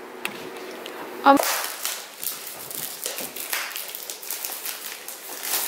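Packaging being handled as a keyboard case box is opened: rustling and crinkling with small scrapes and taps. It starts about a second and a half in, just after a brief vocal sound.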